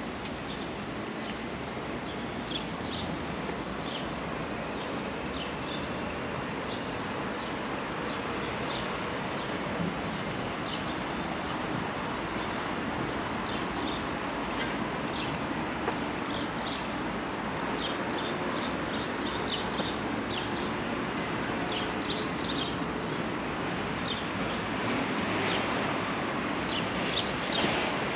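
City ambience: a steady hum of distant traffic, with birds chirping in short, high calls scattered throughout.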